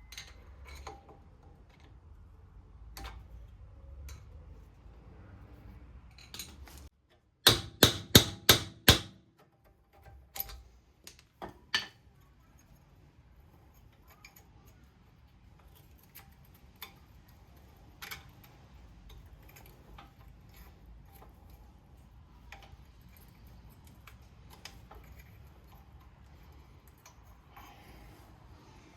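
Five quick, loud, sharp metal hammer blows about a third of the way in, then three lighter knocks, as the pad retaining pin is driven out of a Porsche 986 brake caliper; small tool clicks and rattles between.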